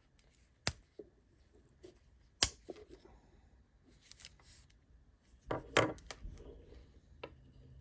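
Sharp metallic clicks of a Swiss Army Alox pocketknife's blades and tools being snapped open and shut: a single click under a second in, a louder one about two and a half seconds in, and a quick run of clicks around six seconds in.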